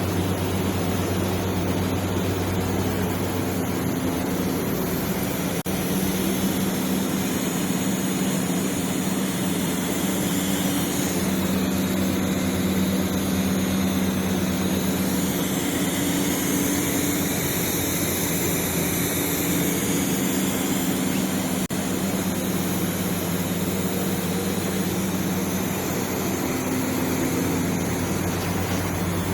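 Welding arc burning steadily on a 4-inch schedule 40 steel pipe, a continuous hiss over a steady electrical hum.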